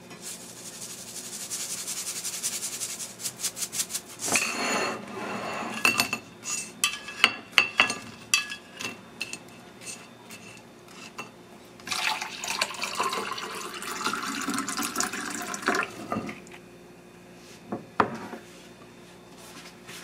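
Kitchen plating sounds. Utensils scrape and clink against ceramic dishes, then chopsticks click repeatedly on a plate as pan-fried dumplings are moved onto it. In the second half water is poured into a glass for a few seconds, followed by a single sharp knock.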